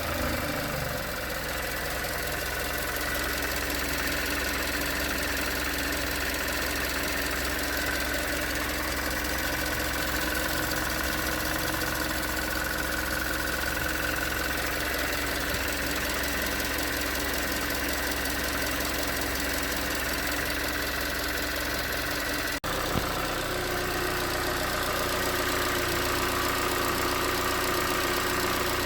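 2019 Hyundai Tucson's 2.0-litre Nu GDI four-cylinder engine idling cold with a steady knocking, which the owner takes for piston slap. There is a single sharp click late on.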